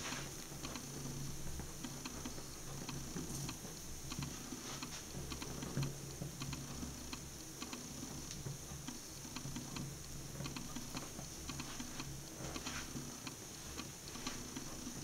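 Burning fabric slip-on shoe crackling, with small irregular ticks and pops as the flames eat the upper. A steady low hum runs underneath.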